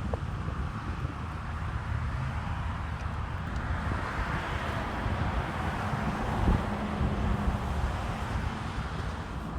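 Road traffic going by, a vehicle swelling louder around the middle and fading, with wind rumbling on the microphone.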